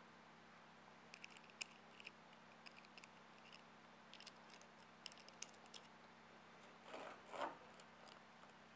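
Faint, light metallic clicks and ticks from a lifting strap's buckle and hook hardware being handled. About seven seconds in come two brief rustling scrapes as the strap webbing is pulled through.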